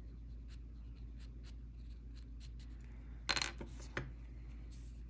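Faint ticks and scratches of a graphite pencil marking a small dot on a paper tile. A louder brief scuffle comes just past three seconds in, then a single click about a second later.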